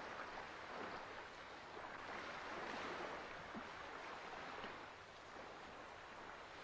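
A soft, steady rushing noise that swells about three seconds in and eases off again, with a few faint ticks.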